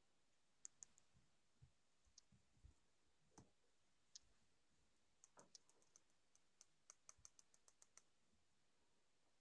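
Very faint, scattered clicks and soft thumps of kittens' paws and claws on a carpeted cat tree, with a quick run of small clicks about five to eight seconds in.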